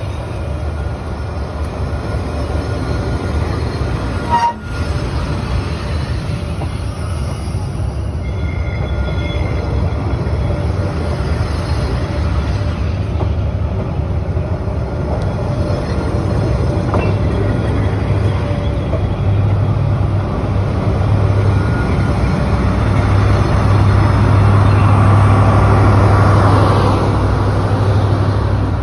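Railway passenger coaches rolling slowly past at close range, their wheels rumbling on the rails with a faint squeal. There is a sharp knock about four seconds in, and the low rumble grows louder near the end as the last coach goes by.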